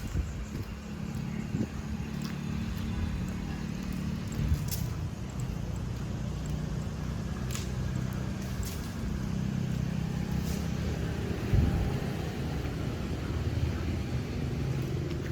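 Road traffic: motor vehicle engines running nearby as a steady low hum, with scattered sharp clicks and a short thump about eleven and a half seconds in.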